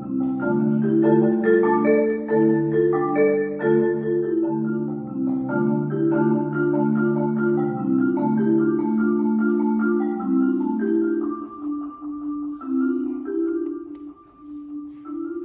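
Solo concert marimba played with mallets: a continuous stream of struck notes in the low and middle register, thinning to fewer, higher notes and growing quieter about two-thirds of the way through.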